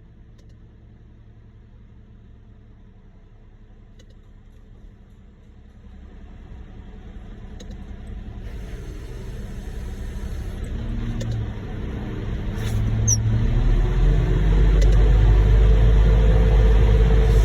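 Heavy diesel engine running, its low rumble growing steadily louder from about six seconds in and loud and steady over the last few seconds.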